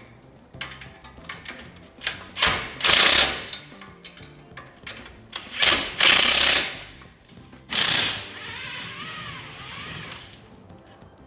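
A power tool, typical of suspension work on a car, running in three loud bursts of about one to two and a half seconds each, over background music.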